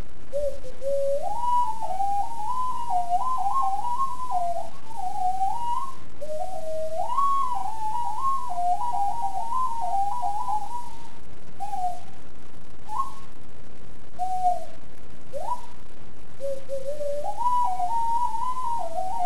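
Extended-range sweet potato ocarina playing a melody of clear, nearly pure notes that step up and down, in two long phrases, then a few short separate notes, then a new phrase starting near the end. A steady hiss runs underneath.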